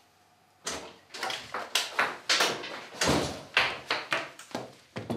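A rapid, irregular run of sharp knocks and bangs starting just under a second in, about three a second.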